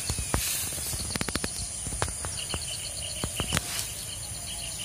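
Steady high-pitched insect drone of the forest, with faint rapid chirping pulses. A run of sharp clicks and snaps comes about a second in, and a few more come around three and a half seconds.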